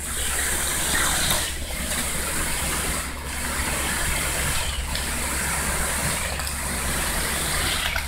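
Concrete pump running steadily with a low engine hum while wet concrete gushes from the hose, the flow dipping briefly about every second and a half as the pump strokes.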